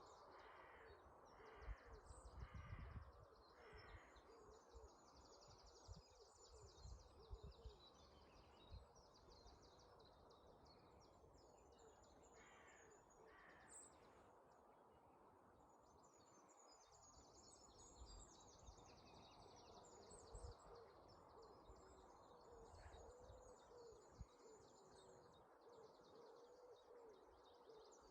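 Faint dawn chorus of several songbirds: rapid high trills and chirps almost throughout, with a short series of lower repeated calls near the start and again around the middle. Under it runs a steady, even murmur of flowing river water.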